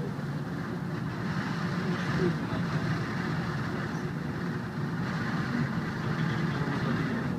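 Steady running noise of a cable car cabin travelling along its cable, heard from inside the cabin.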